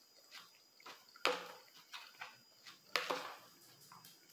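Metal fork and spoon scraping and knocking against a plastic plate while twirling spaghetti, with two sharp clinks, about a second in and near three seconds, and fainter clicks between.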